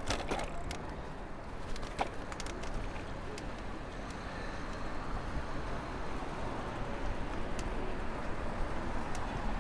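Steady traffic and road noise heard from a moving bicycle in city traffic, with a few sharp clicks scattered through.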